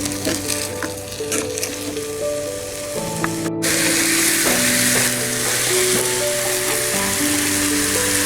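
Food sizzling as it fries, crackling over background music; after a cut about three and a half seconds in, the sizzle becomes louder and denser.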